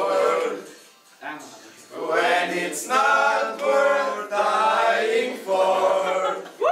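A group of teenage boys singing together, phrases of held notes with a short break about a second in.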